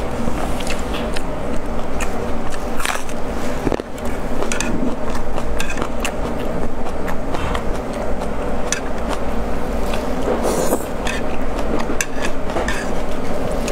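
Chopsticks scraping and clicking irregularly against a metal tray of braised pork belly in sauce, over a steady background noise.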